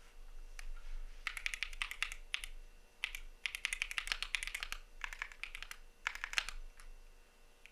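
Typing on a CIDOO V75 mechanical keyboard with Matte switches: quick runs of keystrokes lasting a second or two, with short pauses between them.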